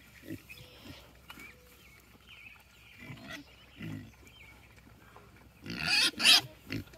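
Pigs grunting in short low bursts while they root for food, then a loud, harsh squeal about six seconds in, followed by a short one just before the end.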